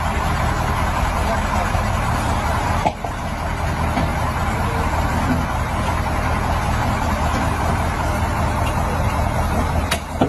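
Diesel engine of a KAMAZ crane truck running steadily as the truck drives slowly forward with a container hanging from its crane.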